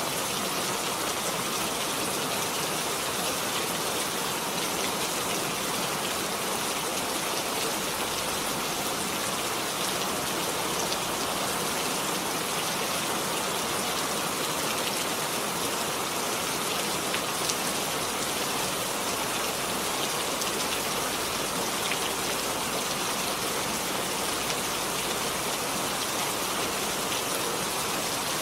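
Steady rain falling, dense patter of drops hitting a surface, even in loudness throughout.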